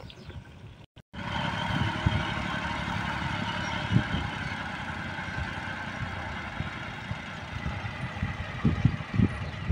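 Engine of a tractor converted into a crop sprayer, running steadily with a hum made of several held tones over a low rumble. The sound cuts out briefly about a second in, and there are irregular low thumps near the end.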